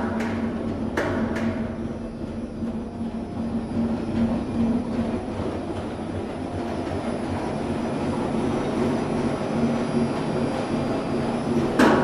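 120-pound industrial washing machine running, its large drum turning with a steady mechanical rumble and hum. A few sharp knocks come in the first second or so, and a louder knock near the end.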